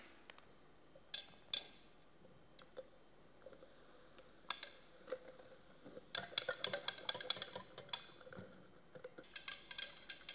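A few scattered clicks and rustles, then from about six seconds in a quick run of clinks: a stirring rod knocking against the inside of a mixing cylinder as C-41 developer part B powder is stirred into warm water.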